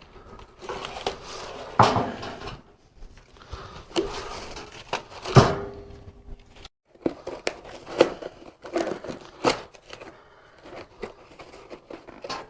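Packaging being pulled out of a cardboard box by hand: irregular rustling and scraping with scattered light knocks.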